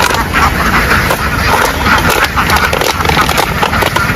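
A large flock of ducks quacking together in a dense, overlapping din, with an engine running steadily underneath.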